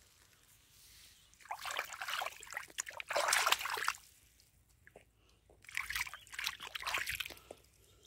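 Muddy puddle water sloshing and trickling as a rough stone is rinsed in it, in two spells of a couple of seconds each with a short pause between.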